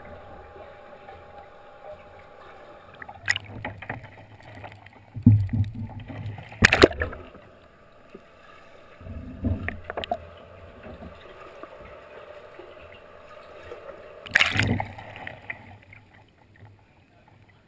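Capsized kayak heard through a camera held underwater: muffled water noise with several sharp splashes and knocks as the paddler sculls and rolls. About 14 seconds in, a loud splash as the kayak rolls upright and the camera comes out of the water.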